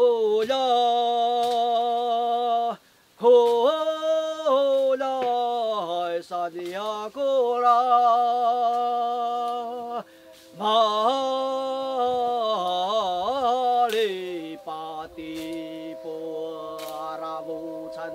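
Unaccompanied voice singing a slow chant in long held notes that step up and down in pitch, with two short breaks. A second, lower held note sounds under it from about halfway through.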